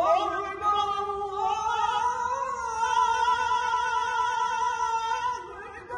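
Evening call to prayer (adhan) sung by a muezzin over a mosque's loudspeakers: one long held phrase with a wavering, ornamented pitch that rises slightly about two seconds in and ends shortly before the close.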